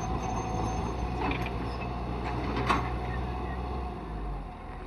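A steady low engine hum with a single sharp knock a little past halfway. The hum drops in level near the end.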